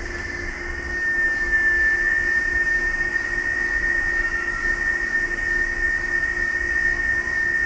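A steady high-pitched whine that wavers slightly in pitch and grows louder about a second in, over a fainter low hum.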